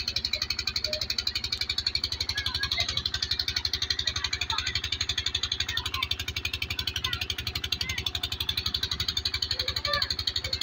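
Stationary irrigation pump engine running with a steady, rapid chugging, its water gushing from the outlet pipe into a concrete tank. A few faint short high calls come and go on top.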